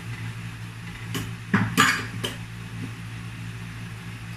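A few sharp clinks and knocks of kitchenware being handled, clustered between about one and two seconds in, over a steady low hum.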